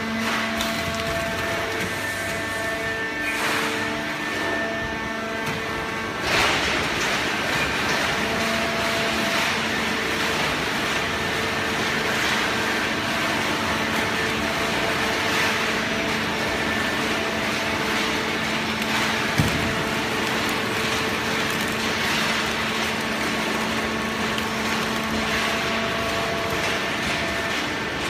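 Automatic horizontal hydraulic waste-paper baler running: a steady machine hum with several held tones, and a louder hiss that comes in about six seconds in.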